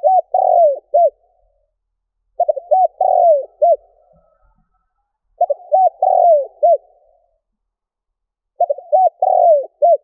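Spotted dove cooing: four phrases about three seconds apart. Each phrase is a quick run of short coos, then a longer drawn-out coo, then a short closing note.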